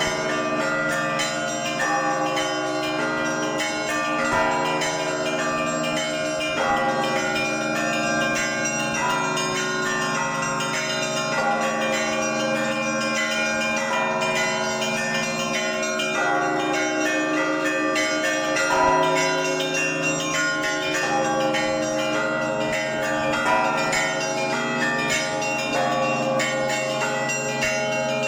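Russian Orthodox church bells rung by hand in a trezvon, the full peal: many bells of different pitches are struck in quick repeating patterns and ring on together without a break.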